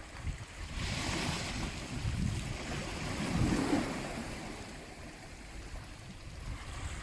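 Sea waves breaking and washing in. The surf swells about a second in and stays loud through the middle, then fades away over the last few seconds.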